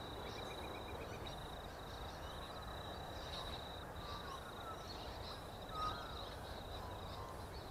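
Rural outdoor ambience: a steady, high-pitched insect trill, with a bird calling briefly about six seconds in.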